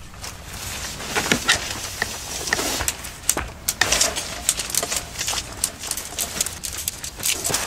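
Irregular clicks, knocks and rustling, as of things being handled and moved about.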